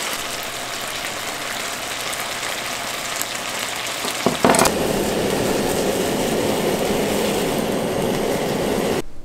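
Food sizzling in a frying pan, with a couple of clattering knocks about four seconds in, after which the sizzle is louder and fuller; it cuts off suddenly near the end.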